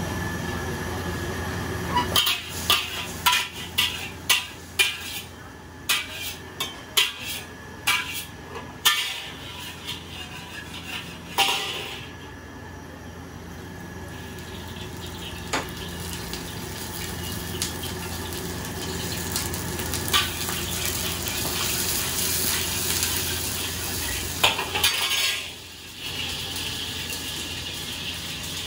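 A metal ladle striking and scraping a wok in a quick, irregular run of clangs, followed by a steady sizzle of fried rice frying that grows louder, dips briefly near the end, then resumes.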